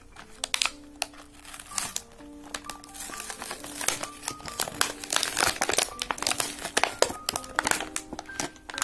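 Clear plastic toy packaging crinkling and rustling as hands pull it open, over background music: a simple tune of steady held notes.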